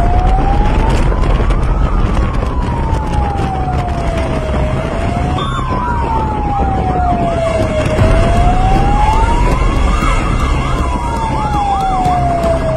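Fire truck siren wailing, its pitch sliding slowly up and down, each sweep taking two to three seconds. Twice a quicker, choppier siren tone warbles over it. The vehicle's engine and road noise rumble steadily underneath.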